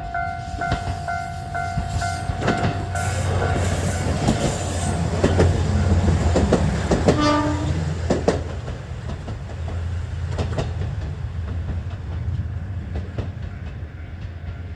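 Level crossing bell ringing in quickly repeated dings, soon drowned as a diesel train runs over the crossing. The engine rumbles and the wheels click over the rail joints, with a short horn blast about seven seconds in. The train then fades away.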